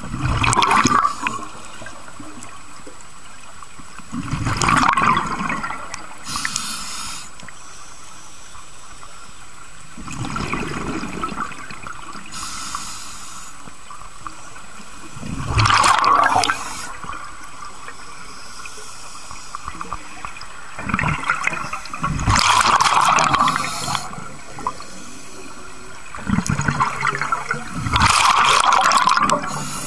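Scuba diver's open-circuit regulator breathing, heard underwater: about six loud gurgling bursts of exhaled bubbles several seconds apart, with fainter hissing inhalations between some of them.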